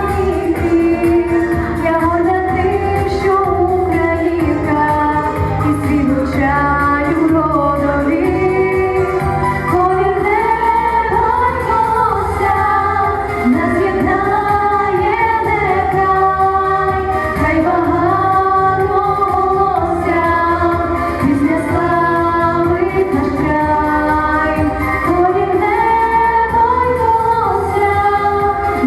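Women singing a song with held, gliding notes over steady instrumental accompaniment.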